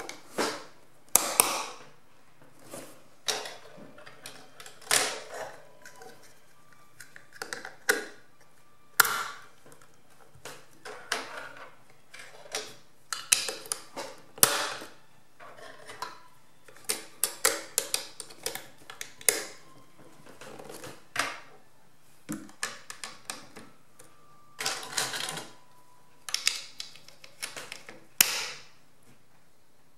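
Snap Circuits pieces being snapped together and onto the clear plastic base grid: irregular sharp plastic clicks and snaps with light clatter of parts being handled, coming in clusters with short pauses between.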